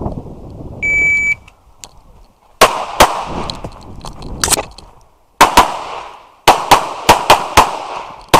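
An electronic shot timer gives one steady, high start beep of about half a second, about a second in. From about 2.6 s a competition pistol fires about a dozen shots, mostly in rapid pairs, as a stage is shot in IPSC Open division.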